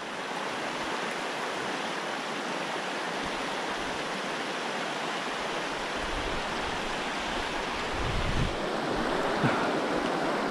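Small mountain creek rushing and splashing over rocks: a steady rush of running water. A couple of low bumps come in the second half.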